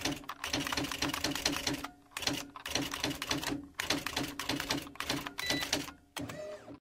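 Rapid key clicking like typing, in quick runs broken by short pauses, cut off abruptly at the end.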